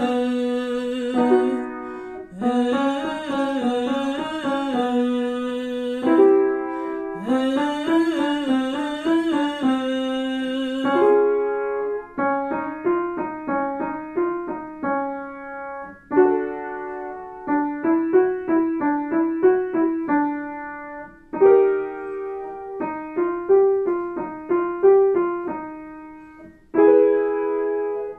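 A woman's voice demonstrates a buzzing 'vv' warm-up on a short up-and-down scale pattern over piano for about the first eleven seconds. After that the piano plays the pattern alone several times, each time starting a little higher.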